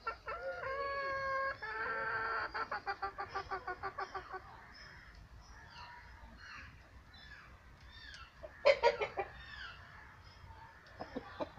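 A rooster crows with a long held call that breaks into a quick stutter of notes. Small birds chirp faintly afterwards, a short loud rooster call comes about two-thirds in, and a few more clucks follow near the end.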